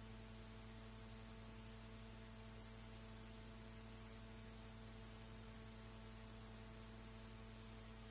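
Near silence: steady tape hiss with a low, constant hum from a played-back audio cassette running on with nothing recorded.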